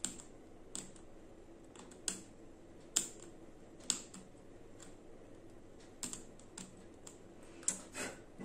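Tester screwdriver tip picking and scraping at a faulty LED on a bulb's metal LED board, prying the LED off so it can be bypassed: sharp, irregular clicks and scratches about once a second.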